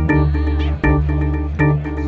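Background music: sustained keyboard chords changing on a steady beat.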